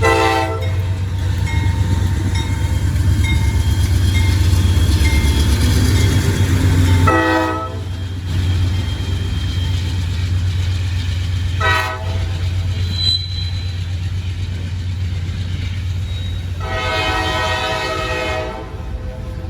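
Norfolk Southern freight locomotive sounding its horn in four blasts over a steady diesel engine rumble. The first three blasts are short, the third the shortest, and the last is held about two seconds: the long-long-short-long pattern of a grade-crossing warning.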